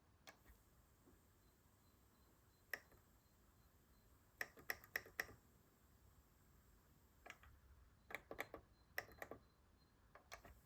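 Onkyo TA-2800 cassette deck's buttons and mechanism clicking. The clicks are sharp and come singly or in quick runs of four or five, while the deck's Auto Accubias calibration fails to start.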